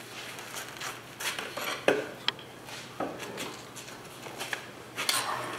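Metal tools and lathe fittings being handled at a stopped wood lathe: a few irregular knocks and clinks, with one short metallic ping near the middle.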